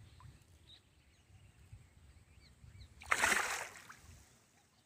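A hooked rohu thrashes and splashes once at the water's surface, about three seconds in, in a short burst of under a second. Faint bird chirps sound in the background.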